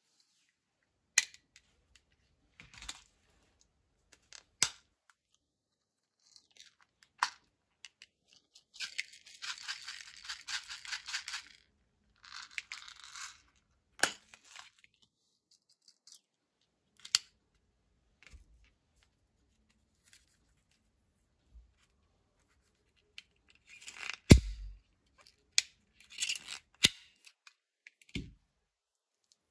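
Sharp plastic clicks and snaps from a handheld flavour-capsule-ball applicator being worked, the loudest about three-quarters of the way through. About a third of the way in comes a dense rattle of small capsule balls poured into the applicator's clear chamber.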